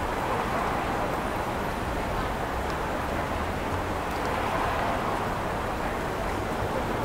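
Steady city street noise, mostly passing traffic.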